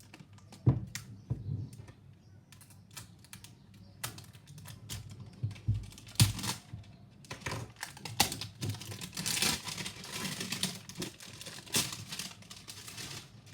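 Hands handling manga volumes and their packaging: a string of taps, clicks and knocks with a couple of heavier thuds, then from about halfway in a stretch of dense crinkly rustling.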